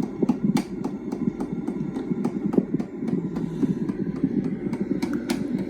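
Harbor Breeze Overcoat 42-inch ceiling fan running on high: a steady low rumble of motor and moving air with irregular sharp clicks through it.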